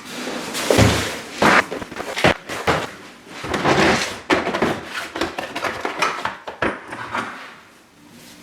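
A run of irregular knocks and clunks with rustling and scraping between them: objects being handled and set down. The loudest knocks fall about one and a half and two and a quarter seconds in.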